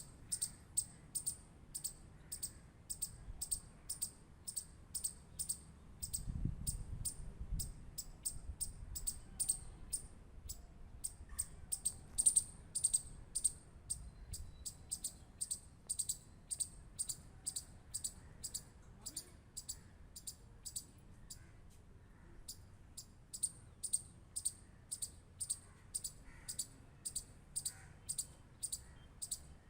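Squirrel giving a steady run of short, high-pitched clicking chirps, about two a second.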